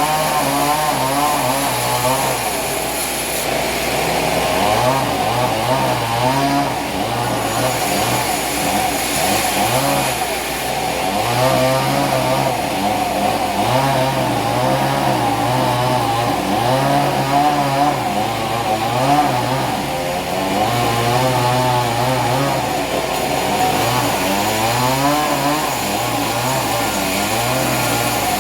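A small engine running steadily, its pitch wavering up and down.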